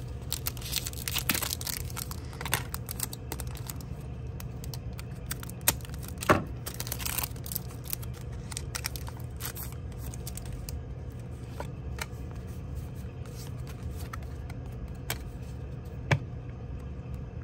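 Cardboard and paper blister packaging being torn open by hand, with tearing and crinkling that is densest in the first few seconds. After that come sparser rustles and a few sharp snaps.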